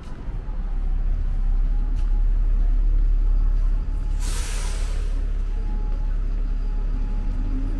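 Double-decker bus engine running while stopped at the kerb, with one short hiss of air brakes about four seconds in.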